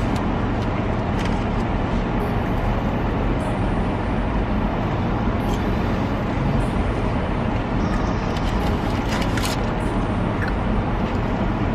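Steady low hum and rush of an idling car heard from inside its cabin, engine and fan running, with a few faint light clicks.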